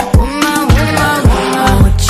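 Afrobeat-flavoured pop song playing, with a steady drum beat, deep bass and a sung vocal line.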